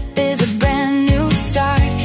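Upbeat background pop music with a steady beat.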